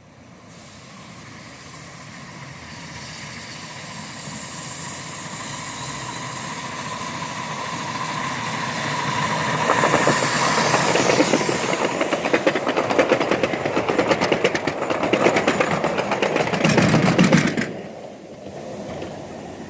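Ridable miniature train on a live-steam club's track approaching and passing close by. The sound builds steadily, then becomes a loud, fast, even clatter of wheels on rail from about halfway through, and drops off sharply near the end as the train moves away.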